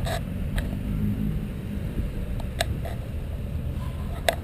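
Steady low outdoor rumble with a few short clicks scattered through it.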